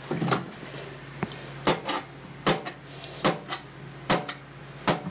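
Kitchen knife chopping through a sausage onto a bare stainless-steel sink counter: about nine sharp knocks of the blade hitting the metal, at irregular intervals, some in quick pairs.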